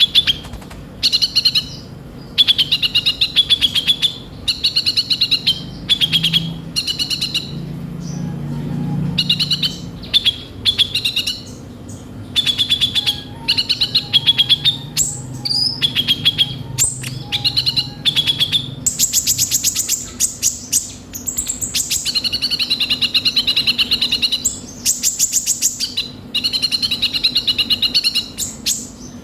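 A kolibri ninja sunbird singing continuously in bursts of fast, rattling, harsh chattering trills, broken by short pauses. In places it switches to higher, very rapid ticking runs. This is the energetic rough-phrase song that keepers use to trigger other sunbirds.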